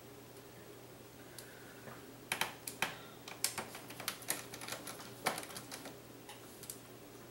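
A quick, irregular run of light clicks and taps as a small screwdriver works a screw loose at the optical drive's retention bracket inside an open laptop chassis. The clicks start about two seconds in and stop near six seconds.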